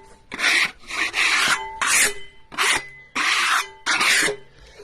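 A quick series of about seven short rasping strokes across the surface of a freshly sawn cherry board, sweeping sawdust off to show the grain.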